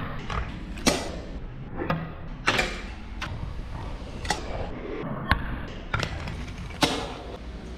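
Fingerboard tricks: sharp clacks as the small board pops and lands on a hard tabletop and knocks onto a miniature brick planter's edge, about eight clacks spread irregularly, with the wheels rolling between them.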